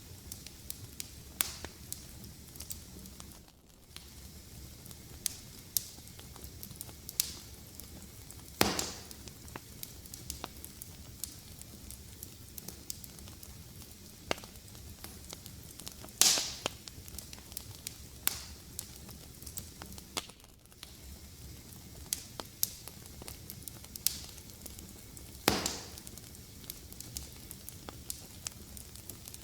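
Fire crackling in a fireplace: frequent small snaps over a low, steady hiss, with three louder pops roughly eight seconds apart.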